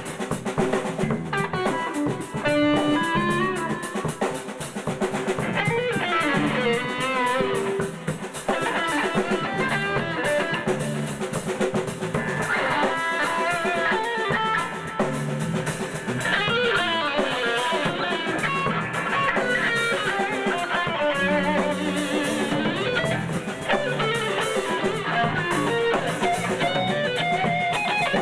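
Live instrumental rock: an electric guitar plays a moving melodic lead line over a drum kit.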